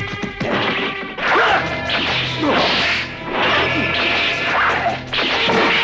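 Cartoon fight sound effects: a run of about five swishing blows and hard hits, roughly one a second.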